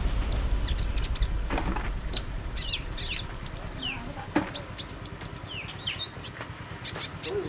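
Female oriental magpie-robin calling in a bird-lure recording: a run of short, sharp high chirps, many sliding downward, at irregular intervals. At the very start the tail of a whoosh sound effect fades out.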